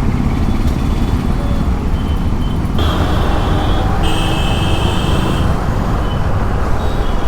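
Motorcycle riding through city traffic: a steady low rumble of engine and wind on the rider's microphone. A high steady tone, like a vehicle horn, sounds about four seconds in for a second and a half.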